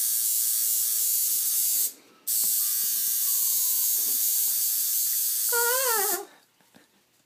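Electric tattoo machine buzzing steadily as the needle works on skin. It stops for a moment about two seconds in, starts again, and cuts off about six seconds in. Just before it stops, a short wavering voice is heard.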